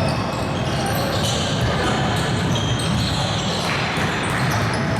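Basketball game in a gym: a ball bouncing on the court under a steady din of players' and spectators' voices echoing in the hall.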